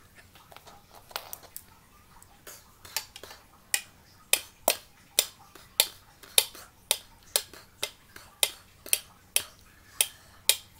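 Light, sharp taps of small hard objects handled by hand: scattered at first, then steady at about two a second from about four seconds in.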